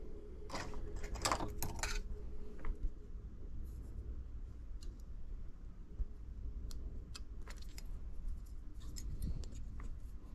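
Small metal tools and parts being handled during a phone repair: a quick run of clicks and rattles between about half a second and two seconds in, then scattered light clicks, over a steady low hum.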